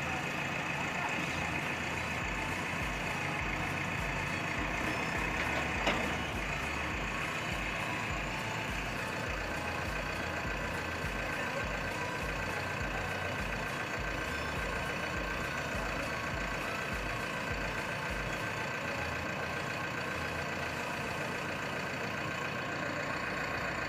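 JCB backhoe loader's diesel engine running steadily with a steady whine over it, and a single sharp knock about six seconds in.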